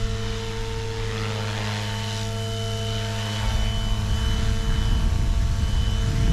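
XLPower Protos 380 electric RC helicopter running, its motor and rotor giving a steady whine. About three and a half seconds in, a low rumbling noise joins.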